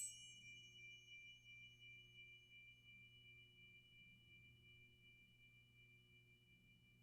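Tuning forks struck together: a sharp metallic ping right at the start, then two high steady tones that ring on and slowly fade. A faint low hum lies underneath.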